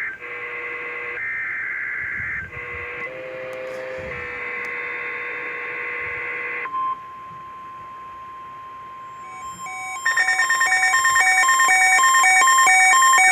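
Emergency Alert System test tones. It opens with screeching digital header bursts in short repeated blocks. Then comes a steady single warning tone of the NOAA Weather Radio alarm, about 1050 Hz. About ten seconds in, a louder electronic alarm of rapidly pulsing beeps in several pitches starts, and a warbling siren-like note joins near the end.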